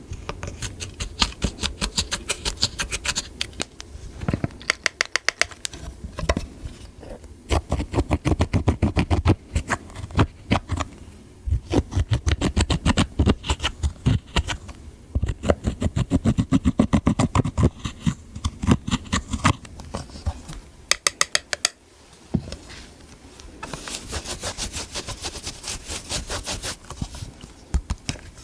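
Slime being mixed and squished, giving rapid wet clicks and pops in bursts with short pauses between them. A softer hissing scrape takes over for a few seconds near the end.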